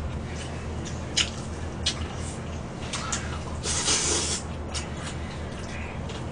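Slurping spicy mixed buckwheat noodles, with one long, loud slurp about four seconds in, and a few sharp clicks of chopsticks against a stainless steel bowl earlier on.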